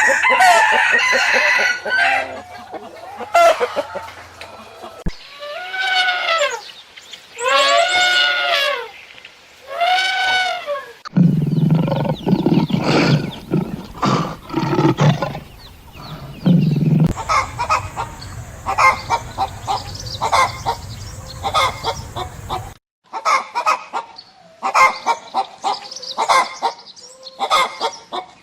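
Chickens: a rooster crowing several times and hens clucking, in a run of short clips that change abruptly.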